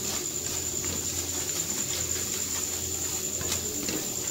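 Spatula stirring and scraping crumbly egg halwa around a metal pan, with a soft frying sizzle in the hot ghee as it is roasted on medium flame, the ghee now separating at the sides.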